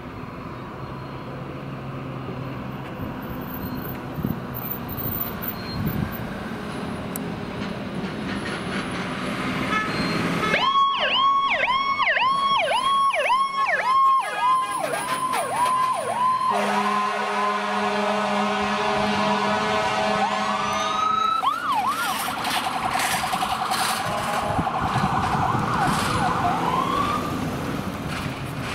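Fire engine responding with lights and siren: its engine rumble grows as it approaches, then about ten seconds in a fast-cycling yelp siren sounds for about six seconds, followed by an air horn blast of about four seconds, then the siren rises again and warbles as it passes.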